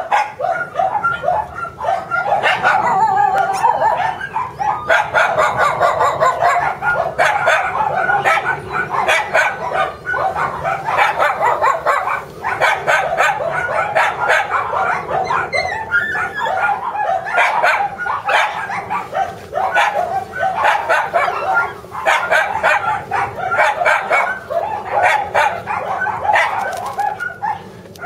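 Shiba Inu puppies yipping and barking: a near-continuous stream of short, high-pitched yaps, several a second, with only brief pauses.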